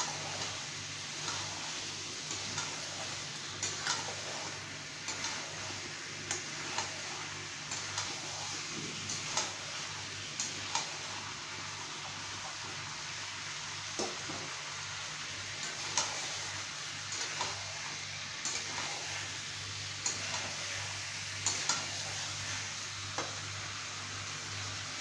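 Chicken and potato curry sizzling in oil in a steel kadai while a metal spatula scrapes and knocks against the pan, about once or twice a second, as it is stirred. The curry is at the kosha stage, frying down in the oil released from the meat. A steady low hum runs underneath.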